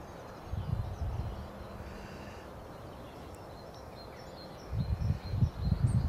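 Wind gusting over the microphone in low buffets, about half a second in and again from near the end, with a quieter lull between. Faint short, high bird chirps sound in the background during the lull and at the end.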